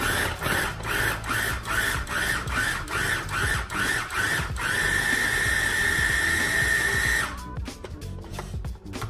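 Small electric food chopper pulsed in short bursts, about three a second, then run continuously for a couple of seconds before it stops, chopping vegetables in its bowl.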